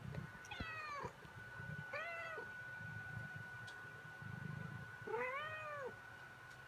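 A domestic cat meowing three times, each meow a drawn-out call, the first falling in pitch and the last rising then falling.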